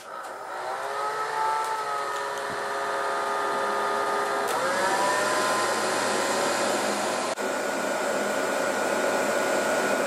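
Panasonic EH-NA50 hair dryer switched on and running at full power, drawing about 1,350 W: a steady rush of air with a motor whine that rises as it spins up, then steps higher about four and a half seconds in and holds.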